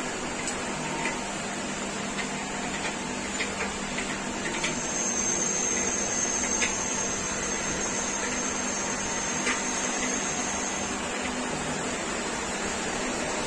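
Electric noodle making machine running: a steady motor whir and hum from its chain-and-gear roller drive, with a thin high whine joining for several seconds midway and a few faint ticks.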